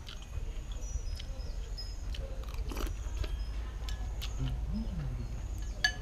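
A person chewing a mouthful of noodle soup, with small clicks of chopsticks and spoon, over a steady low rumble. Near the end a metal spoon clinks sharply against the bowl.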